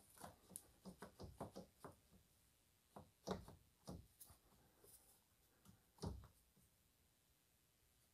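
Faint clicks and knocks of plastic being handled: the plastic push rivets and the fan cowling under the car. A quick run of small clicks comes first, then a few sharper knocks about three and four seconds in and one more about six seconds in.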